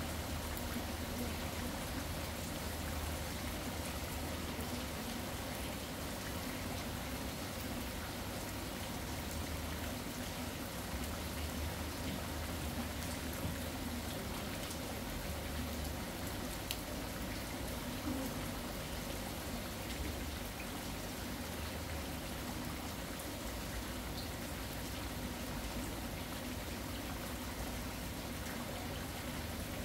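Steady rain falling, an even hiss with a few faint ticks of drops, over a low, uneven rumble.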